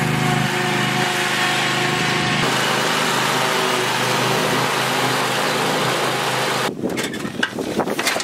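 Riding lawn mower engine running steadily under load while its deck cuts tall grass. About six and a half seconds in the steady engine sound gives way to uneven knocks and rustling from the camera being handled.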